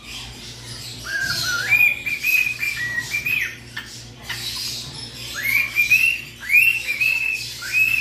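Cockatiel whistling a learned tune: clear whistled notes stepping up and down in pitch, in two phrases, the second starting about five seconds in.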